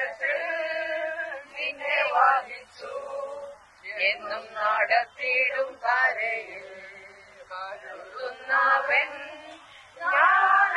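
A group of women singing together in unison, a slow chant-like song in phrases with held notes and short breaks between lines.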